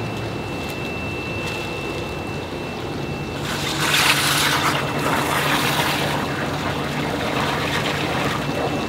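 Plastic fish bag crinkling as it is filled with oxygen from a hose and gathered at the neck, loudest for a couple of seconds in the middle, over a steady wash of running water and a low hum.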